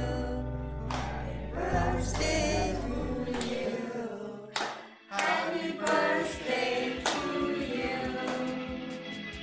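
A group of voices singing with music, with a few hand claps in places.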